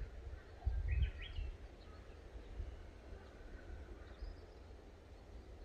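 Wild birds chirping briefly, a quick cluster of chirps about a second in and a faint high call near four seconds, over wind rumbling on the microphone that gusts loudest about a second in.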